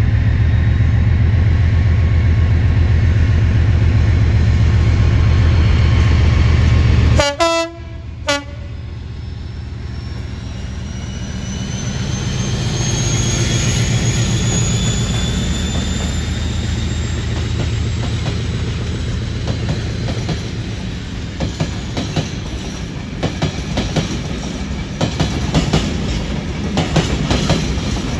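Class 56 diesel locomotive's V16 engine running under load with a deep, steady throb. The sound breaks off briefly a little after seven seconds. Then a whistle rises slowly as the locomotive pulls away, and near the end the wagons' wheels clatter over the rail joints as they pass.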